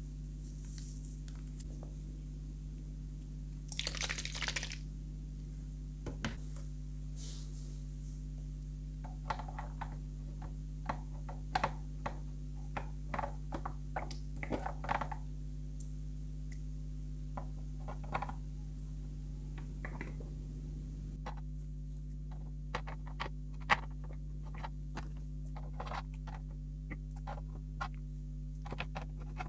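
Scattered light clicks and taps of small plastic parts of a tie-dye kit being handled, with a brief rustle about four seconds in and one sharper tap near the end, over a steady low hum.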